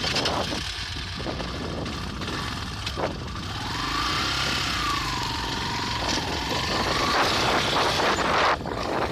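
Shineray 250 motorcycle running, its slack, under-tensioned drive chain knocking.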